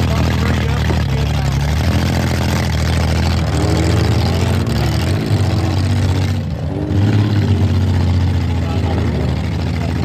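Demolition derby cars' engines running loudly and revving, with crowd voices mixed in.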